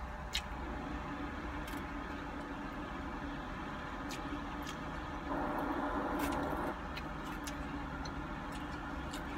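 Steady low vehicle hum heard inside a car's cabin, with a louder rush lasting about a second and a half near the middle, and scattered light clicks of a plastic fork on a foam takeout container.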